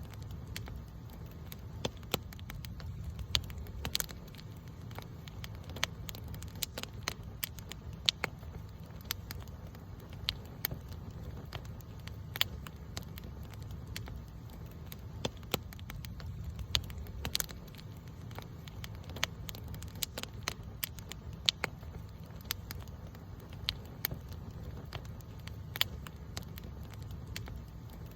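Campfire burning, the wood crackling and popping at irregular intervals, a few pops sharper and louder than the rest, over a steady low rumble.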